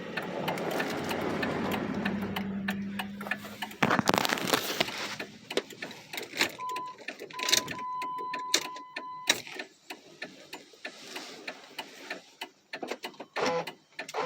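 Jeep's alarm and electrics acting up on a very dead battery fed by an undersized jump pack: rapid clicking throughout, a low buzz for about four seconds ending in a thump, then a broken beeping tone from about six to nine seconds in.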